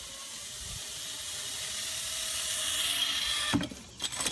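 Zipline trolley running along a steel cable, a hiss that slowly grows louder as the rider comes closer. Near the end a few sharp knocks as the rider crashes into a bush and tree at the end of the line.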